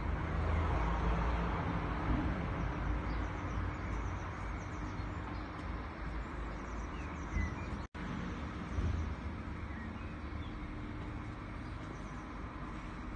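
A steady low rumble of outdoor ambience, with small birds chirping now and then and a very brief break in the sound about eight seconds in.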